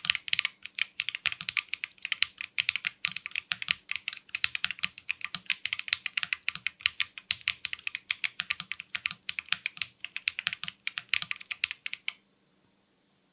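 Typing on a mechanical keyboard fitted with KiiBoom Taro Cream Milk tactile switches: a rapid, continuous run of keystroke clacks that stops about a second before the end.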